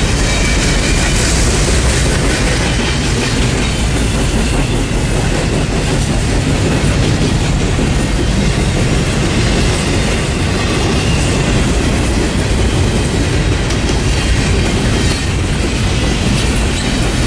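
Norfolk Southern train rolling past, a steady loud rumble with the clatter of wheels on rail.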